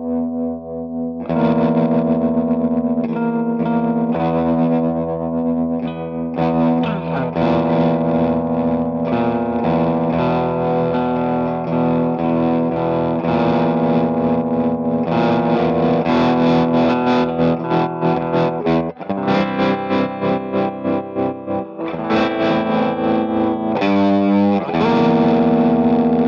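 Overdriven electric guitar from a Gibson SG Custom through a Marshall YJM head, chords played through a transistor tremolo pedal, the Greer Arbuckle Trem. Its volume pulses quickly and evenly for a few seconds past the middle.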